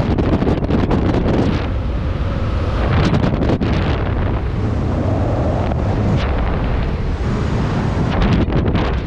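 Wind buffeting the microphone of a camera worn by a skydiver flying under an open parachute canopy: a loud, steady rumble with crackling gusts at the start, about three seconds in, and near the end.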